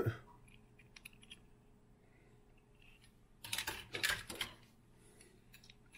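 Quiet room with a few faint clicks, then about three and a half seconds in a second of louder clicks and rustling as small die-cast metal toy cars are handled.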